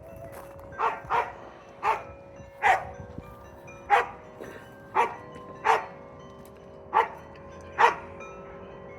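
A dog barking in single short barks, about nine of them at uneven intervals, over a faint steady hum.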